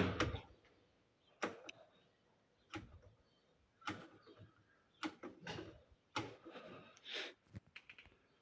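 An Indesit IN-EWD8143W washing machine being handled: a series of sharp clicks and knocks about once a second, some followed by short scraping noises.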